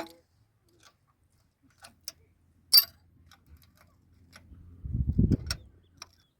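Scattered, irregular sharp clicks and taps, the loudest about three seconds in, with a short low rumbling noise about five seconds in.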